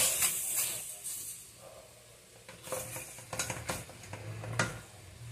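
A spatula scraping and knocking against a stainless steel pot as chunks of raw fish are turned over, with a faint sizzle from the pot. A sharp knock at the start, a quieter stretch, then a run of short scrapes and taps a couple of seconds in.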